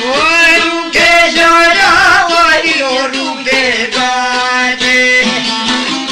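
Male voice singing an Albanian folk song in long phrases with sliding, wavering pitch, over a plucked long-necked lute (çifteli) holding a steady drone note.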